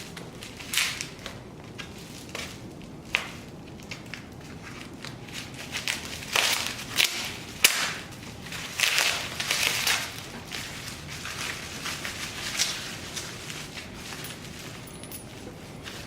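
Parts being handled and shifted about on a planer: irregular scraping and rustling with a few sharp knocks, busiest in the middle stretch.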